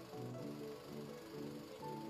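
Background music: a melody of short, evenly paced notes over low chords.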